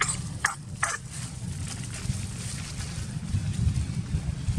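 Low, gusty wind rumble on the microphone, swelling near the end, with three short sharp sounds in the first second.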